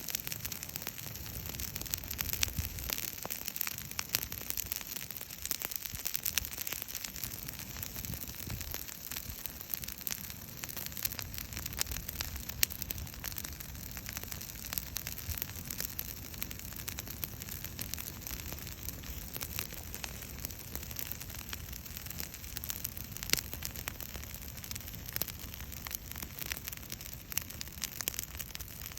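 Wood bonfire crackling, with many small sharp pops and snaps scattered over a steady hiss.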